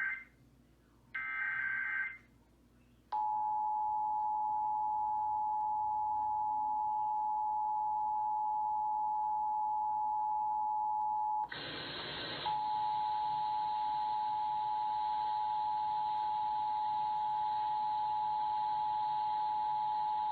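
Emergency Alert System broadcast: the last two of the SAME header's short digital data bursts, a harsh warbling screech, then about three seconds in the steady two-tone EAS attention signal, held to the end. About twelve seconds in a brief burst of noise interrupts the tone, and a faint hiss stays under it afterwards.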